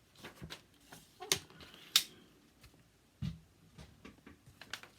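Cardstock and crafting tools handled on a work table: a scattered series of short clicks and light knocks, with a duller low knock a little after the three-second mark.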